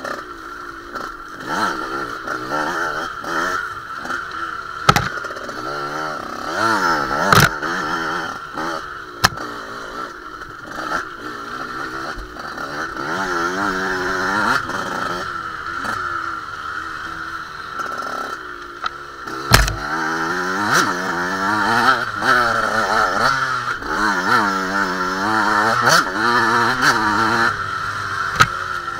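Off-road dirt bike engine revving up and falling back again and again as it is ridden hard over rough ground, with several sharp knocks from the bike hitting bumps.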